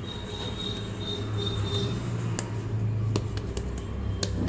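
Hands kneading and rounding a ball of pizza dough in a stainless-steel bowl: soft, sticky handling with a few light clicks, over a steady low background hum.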